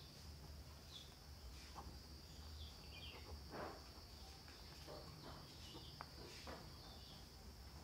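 Near silence: faint scratches of a pen writing on notebook paper, a few short strokes, over a steady faint high whine and low hum.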